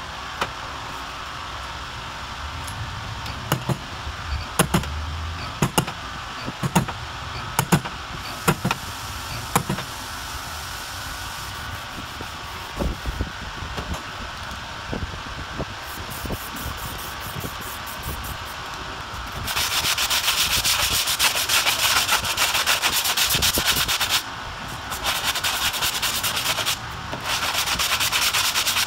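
Slide hammer pulling dents from a steel car door, with sharp knocks about once a second for the first ten seconds or so. Then, about two-thirds of the way through, a hand sanding block scrapes steadily over the bare-metal repair in three runs with short pauses between them.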